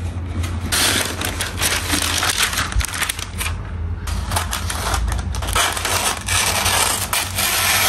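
Rapid, irregular clicking and clattering, with a stretch of hissing rustle about a second in and another from about five seconds in.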